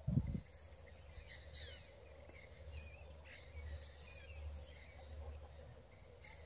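Quiet outdoor ambience: faint high chirps and a steady low rumble, opening with a brief dull thump.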